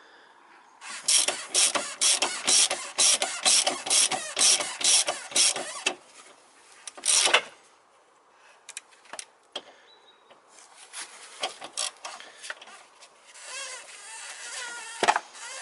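Hand ratchet wrench with a 10 mm socket on an extension clicking as it is worked back and forth to back out a bolt. There is an even run of about four clicks a second for roughly five seconds, then one loud click and a few scattered clicks.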